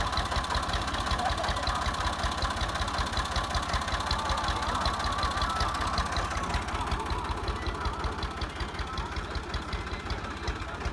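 Ursus tractor's diesel engine running steadily with an even chugging beat.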